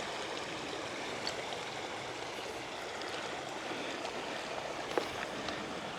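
Shallow, rocky river running steadily over stones, an even rush of water, with one faint sharp knock about five seconds in.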